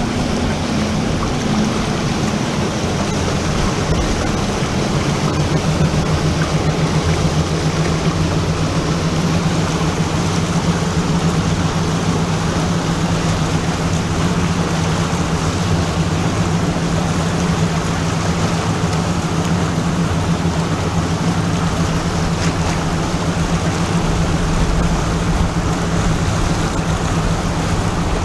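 Motorboat engine running at a steady pitch, its hum growing stronger about five seconds in, over the rush of water from the boats' wakes.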